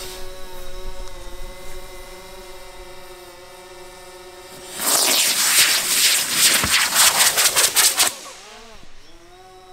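Estes E16 model rocket motors in a giant helicopter-style firework firing about five seconds in: a loud rushing hiss, pulsing rapidly as the firework spins and lifts off, that lasts about three seconds. One motor's casing has burst, so it flies on only one or maybe two motors.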